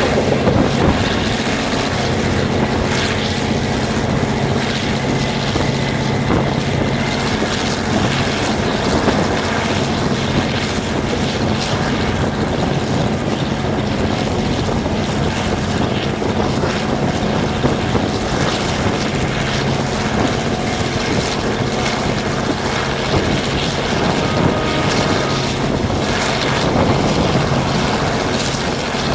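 EMD G22CU diesel locomotive's 12-cylinder EMD 12-645E two-stroke engine running at a steady drone, heard from aboard the train it is hauling: the roar of the EMD 645.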